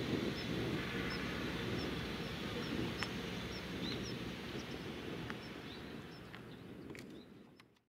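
Outdoor waterside ambience: a steady low rumbling noise with a short, high chirp repeating about twice a second. Everything fades out near the end.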